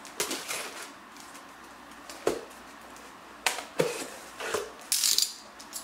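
Cardboard shipping box being cut open and its flaps pulled back: scattered sharp taps and scrapes of cardboard, with a short rasp about five seconds in.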